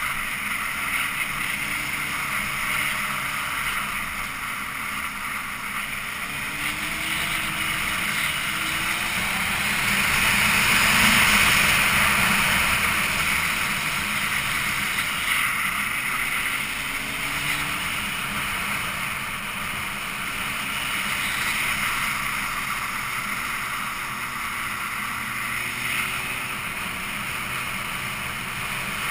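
Wind rushing over the microphone of a vehicle driving along a winding mountain road, swelling briefly about ten seconds in, with the engine's note faintly rising and falling underneath.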